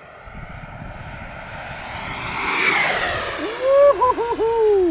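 E-flite Havoc Xe 80mm electric ducted-fan jet making a fast pass: its rushing whoosh builds over about three seconds, while a high fan whine drops in pitch as the jet goes by. Near the end a person calls out loudly in a long, wavering exclamation.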